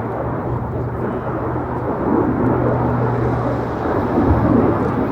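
F-22 Raptor's twin F119 turbofan engines, a steady jet rumble that grows a little louder about two seconds in.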